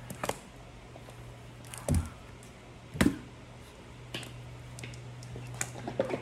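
Scattered clicks and light knocks of kitchen utensils and containers being handled while mayonnaise is put on a burger bun, the two sharpest knocks about 2 and 3 seconds in, over a steady low hum.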